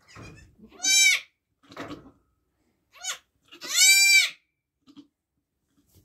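Nigerian Dwarf goat bleating: two loud, high calls, one about a second in and one about four seconds in, each rising and then falling in pitch, with a couple of short, fainter bleats between them.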